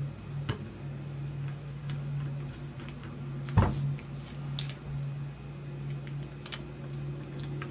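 Scattered small clicks and taps of a screwdriver and loose screws being handled, with one louder knock about three and a half seconds in, over a steady low hum.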